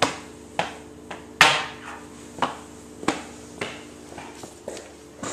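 A series of sharp knocks or thumps, a little under two a second, the loudest about a second and a half in, over a steady low hum.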